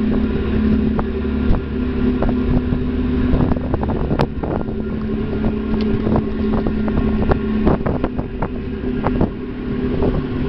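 Steady drone of a harbour passenger ferry's engines heard on board, a low rumble with a steady hum over it. Scattered light clicks and knocks through the middle, the sharpest a single tick about four seconds in.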